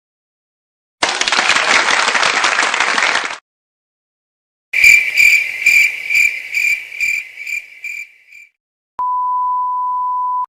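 Three stock sound effects in a row: a burst of hissing noise for about two seconds, then a high ringing tone pulsing about four times a second and fading out, then a steady high-pitched censor bleep near the end.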